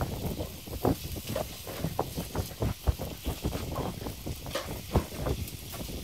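Wooden picks clicking and scraping against a takoyaki griddle as batter balls are turned, over a steady sizzle of cooking batter. The taps come irregularly, a few sharper knocks standing out.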